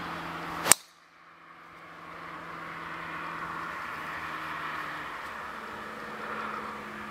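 Golf driver striking a teed ball: one sharp crack about three-quarters of a second in. Afterwards a steady outdoor hiss.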